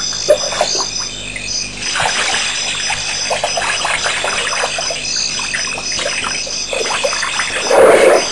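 African elephant drinking: water splashing and dribbling as it draws water up its trunk and squirts it into its mouth, with a louder gush near the end.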